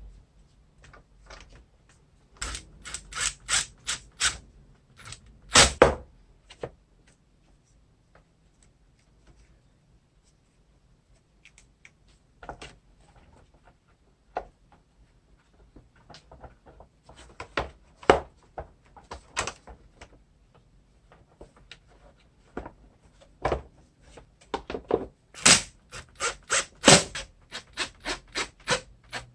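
Hands working on the parts of an opened Samsung vacuum cleaner and its motor: scattered sharp clicks and knocks in clusters, with a fast run of clicks near the end.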